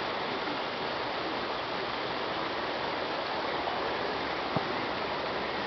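Steady rush of flowing water, with one sharp click about four and a half seconds in.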